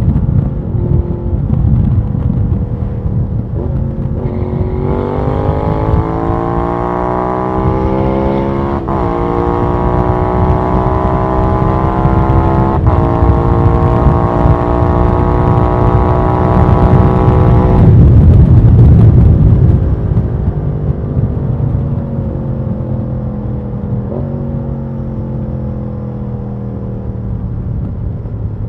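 Can-Am Spyder RS-S SE5's Rotax V-twin through a Hindle exhaust under hard riding: the note rises as it pulls through the gears, with quick upshifts about a third and nearly halfway in. About two-thirds in the throttle closes and the engine note winds down on the overrun, over a steady low wind rush.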